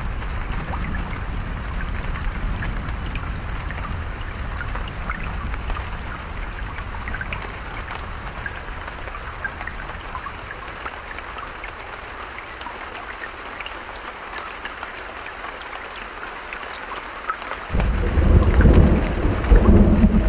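Steady rain with scattered drop ticks, and a low thunder rumble that fades away over the first two-thirds. Near the end a loud peal of thunder breaks in suddenly.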